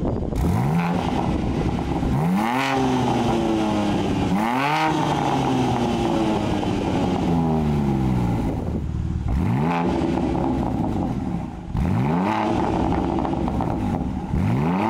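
BMW G80 M3's twin-turbo inline-six revved in short blips through a titanium cat-back race exhaust. There are about six blips, each pitch rising quickly and then falling back to idle, with the engine idling in between.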